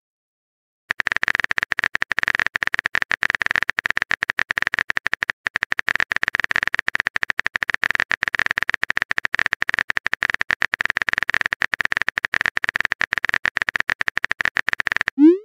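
Rapid, irregular keyboard-typing clicks from a chat app's typing sound effect, starting about a second in and going on for some fourteen seconds, with a short rising blip near the end.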